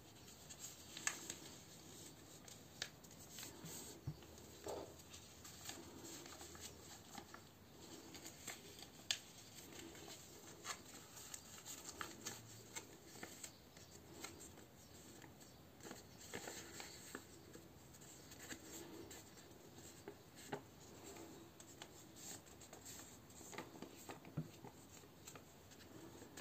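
A sheet of A4 paper being folded and creased by hand: faint rustling and rubbing, with frequent small crackles and ticks as the folds are pressed.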